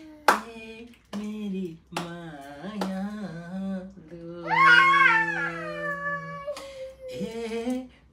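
A person humming a slow Nepali song in long held notes. There are a few sharp taps in the first three seconds, and a brief, louder, higher voice falls away about four and a half seconds in.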